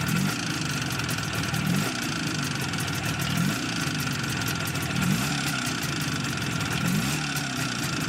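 IZh Jupiter-5 two-stroke twin motorcycle engine running, with short throttle blips about every second and a half. It has the ringing from the cylinder and piston group that the owner blames on the pistons' faulty geometry.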